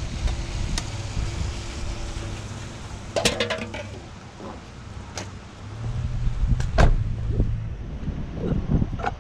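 Scattered clanks and rattles of things being handled during dumpster picking, over a steady low engine hum.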